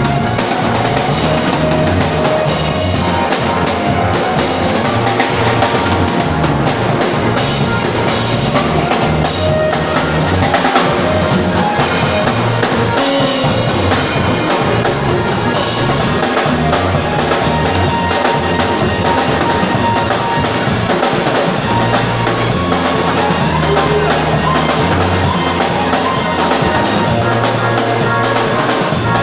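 Music: a drum kit playing a steady groove, with bass drum and snare, over a bass line of held low notes.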